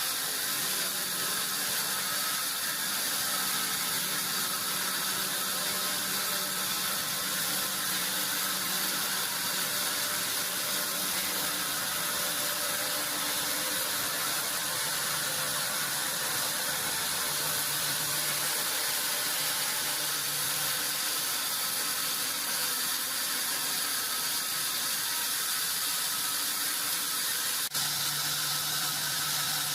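Steady high-pitched hiss and whine of sawmill machinery running, unchanging throughout, with a single sharp click near the end.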